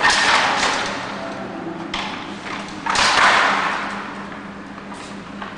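Twin-cloth handloom being worked by hand: four wooden clattering knocks a second or two apart, each dying away, as the picking handle throws two shuttles at once between the three shuttle boxes and the sley beats up the weft.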